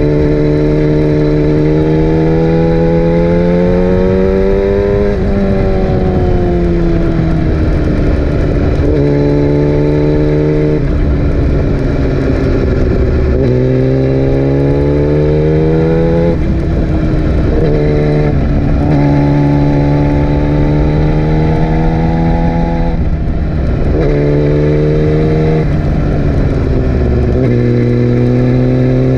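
Yamaha R6 sport bike's inline-four engine under way, its pitch climbing and then dropping sharply many times over as it changes gear and comes on and off the throttle.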